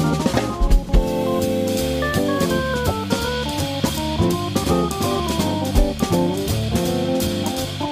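Jazz organ trio playing: electric guitar single-note lines over organ chords, with a drum kit keeping time on cymbals.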